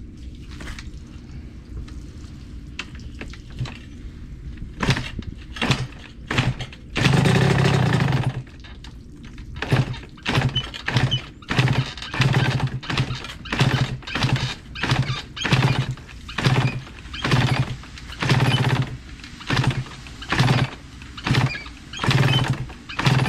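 Two-stroke dirt bike being kick-started again and again, starting about five seconds in at roughly one kick a second. Each kick turns the engine over with a short low sputter, and around seven seconds in it sputters longer, for about a second and a half, without starting. The engine wants to fire but won't start.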